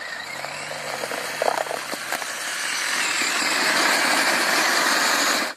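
Radio-controlled monster truck with a plough blade driving through slush: a rising motor whine under a hiss of tyres and blade in the wet slush, which grows loudest in the last couple of seconds and then cuts off suddenly.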